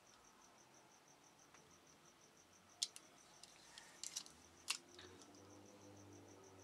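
Craft knife cutting a decal sheet on a board: a few sharp clicks about three seconds in and again around four to five seconds. Under it, a faint high chirp repeats steadily about five times a second.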